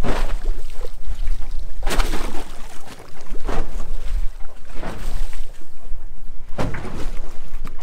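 Wind buffeting the microphone over open water, in loud gusty bursts, with splashing as a small halibut thrashes at the surface while it is reeled up to the boat.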